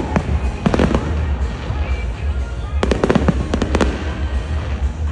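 Display fireworks going off: sharp bangs and crackles in quick clusters, densest around the three-second mark, over a constant low rumble.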